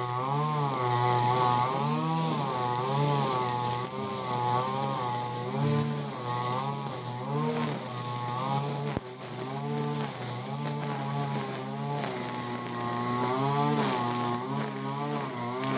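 Ogawa 26cc brush cutter with a nylon-line trimmer head running at high throttle, its engine pitch sagging and recovering about once a second as the 2.2 mm line swings through thick, long grass, under a steady hiss of line and cut grass.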